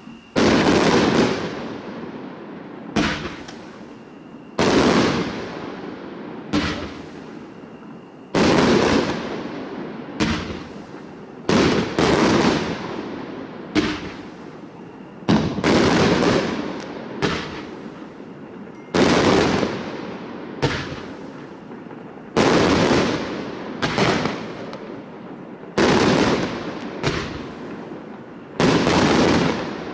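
A 90-shot firework cake with silver wave and crackling W-shape effects firing: a sharp bang every second or two, each followed by a long fading crackle.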